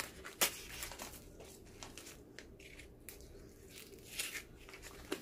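Plastic cling film being torn and peeled off a styrofoam tray of sliced beef: scattered crinkles and crackles, with the sharpest rip about half a second in.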